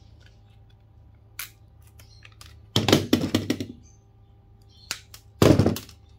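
Pliers crunching and cracking a small inductor apart to free its copper winding: a couple of sharp clicks, then two loud spells of rapid cracking, about three seconds in and again about five and a half seconds in.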